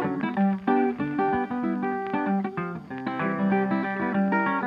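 Background music on guitar: a quick run of plucked notes.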